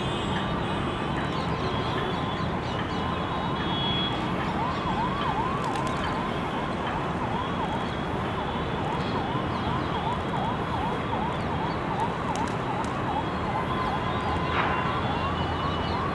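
A siren sounding, its pitch sweeping up and down in quick repeated arcs, over a steady background of noise.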